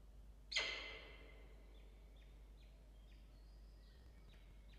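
Peregrine falcon chicks giving faint, high begging cheeps, about two a second, as the adult feeds them. About half a second in, a sudden loud sharp sound with a short ringing tail stands out above them.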